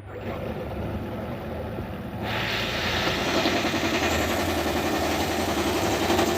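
Toyota Aqua hybrid's four-cylinder engine running with one cylinder misfiring, giving a rapid knocking rattle (a 'kada kada kada' sound) that gets louder about two seconds in. The uneven power from the dead cylinder makes the power-split planetary gears knock; the usual fault is an ignition coil or spark plug.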